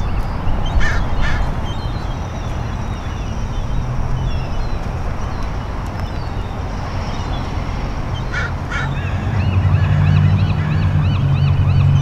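Outdoor wind rumbling on the microphone, with a few short bird calls. From about nine seconds in, a steady low hum and a fast, evenly repeated high chirping join it.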